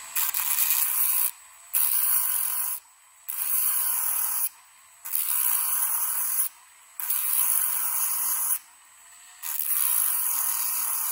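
Dremel rotary tool with a thin cutoff wheel grinding into a small piece of copper in six bursts of about a second each, with short quieter breaks as the wheel is lifted off between cuts. It is cutting notches in a copper sword guard. The footage is sped up, so the tool sounds faster and higher than it runs.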